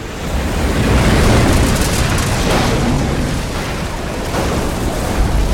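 Cinematic explosion effect of a telekinetic blast wave: a loud, deep rumbling roar that swells over the first second and stays loud, with a few sharper crashes as a truck is flung through it.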